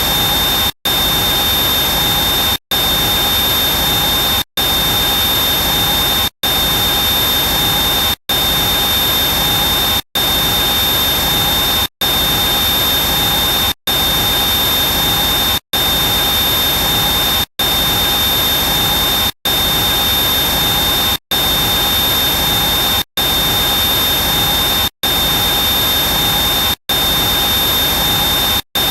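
Helicopter turbine engine running close by: a steady rushing noise with a high whine held on one pitch. It cuts out to silence for a split second about every two seconds and starts again unchanged.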